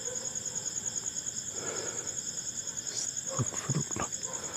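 Crickets chirping in a steady, fast, even high-pitched trill, with a few soft knocks about three and a half seconds in.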